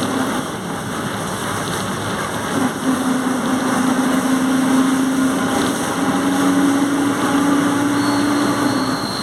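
Volkswagen 17.230 OD bus under way, its engine running with a steady transmission whine over the road noise. The whine drops out about half a second in and comes back at about two and a half seconds.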